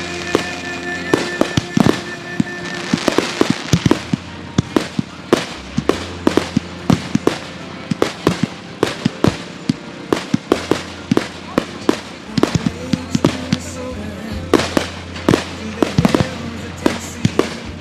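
Fireworks going off in rapid succession, many sharp bangs and pops several a second, with recorded music playing underneath.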